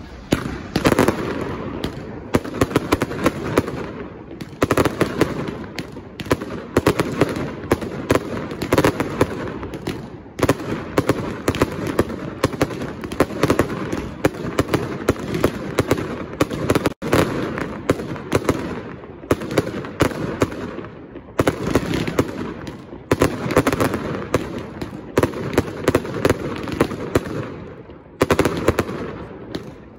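Castillo aerial fireworks display fired at close range: a dense, unbroken barrage of shell bursts and bangs, many reports a second.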